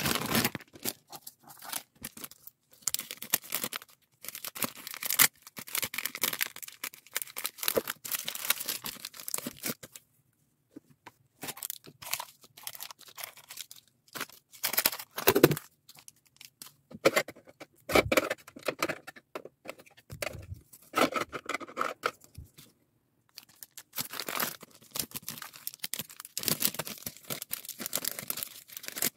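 Clear plastic bags and candy wrappers crinkling and rustling as they are handled and packed by hand, in irregular bursts with two brief silent gaps.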